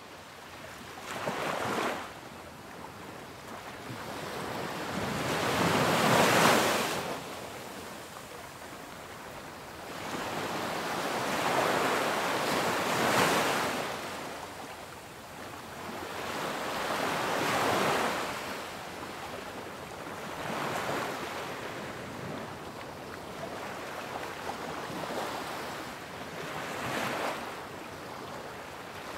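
Ocean surf breaking on a beach: waves rush in and wash back, the rushing swelling and fading every five seconds or so.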